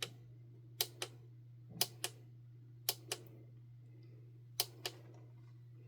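Buttons on a BeaverLab time manager being pressed, four crisp double clicks (press and release) about a second apart, with a gap before the last, over a steady low hum.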